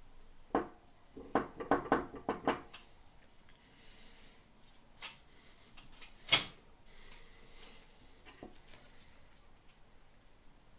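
Light clicks and knocks of small hard objects being handled. A quick run of them comes in the first three seconds, then two sharper clicks follow a second and a half apart, the second the loudest.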